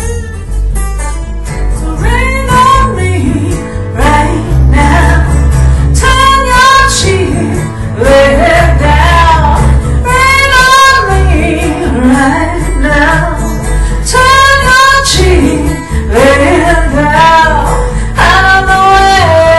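A woman singing with wavering vibrato over a strummed acoustic guitar and a second guitar, in a live unplugged band performance.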